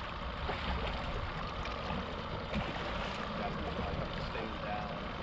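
Steady rush of lake water along a fishing boat's hull, with wind on the microphone.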